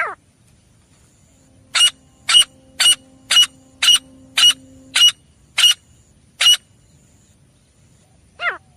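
Grey francolin calling: a run of nine short, sharp notes, about two a second, set between single downward-sliding calls at the start and near the end.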